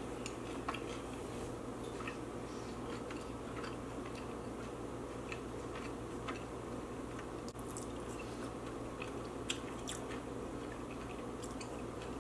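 Close-up chewing of Hot Cheetos, with scattered crisp crunches. Under it runs the steady rush of air from a room heater.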